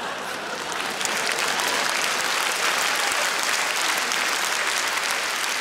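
Theatre audience applauding, a steady patter of many hands clapping that swells a little about a second in.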